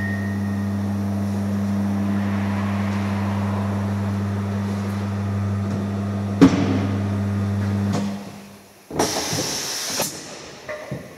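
Tyre changer's electric turntable motor humming steadily for about eight seconds, with a single sharp knock partway through. About nine seconds in comes a loud hiss of compressed air as the machine's pneumatic tilt-back column swings the mounting head away from the wheel.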